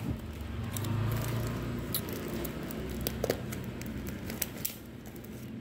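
Paper and plastic wrapping rustling and crinkling as hands pull it off a potted plant, with scattered small crackles and clicks.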